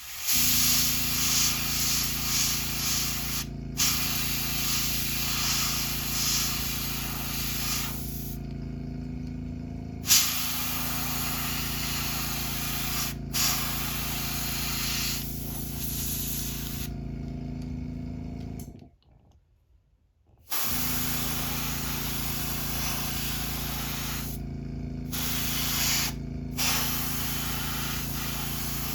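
Airbrush spraying paint in hissing passes several seconds long with brief stops, over the steady hum of its air compressor. Both the hum and the hiss cut out for about a second and a half about two-thirds of the way through.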